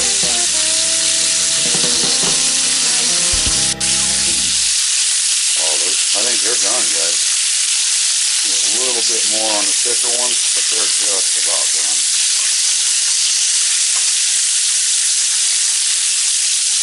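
Venison tenderloin steaks sizzling steadily as they sear on a hot ridged grill pan.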